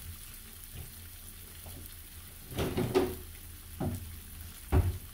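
Red chile sauce bubbling and sizzling gently in a frying pan on a gas stove. In the second half come several short, louder knocks and clatters of kitchen handling.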